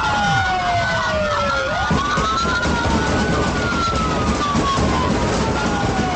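Several police car sirens wailing at once, their slow rising and falling tones overlapping out of step, over steady engine and road noise.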